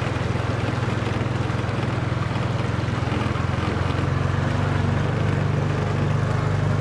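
Side-by-side buggy engine running steadily as the buggy drives through shallow flood water, with the rushing wash of water around the vehicle. The engine note rises slightly about four seconds in.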